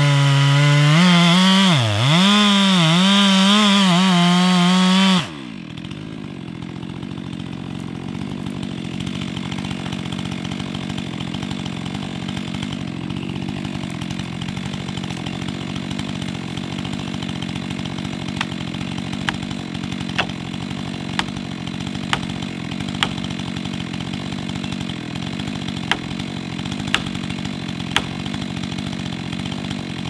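Stihl MS 462 C-M chainsaw cutting at full throttle, its pitch dipping and recovering under load. About five seconds in the throttle is released and the saw drops to idling steadily. Later a run of sharp knocks comes about once a second.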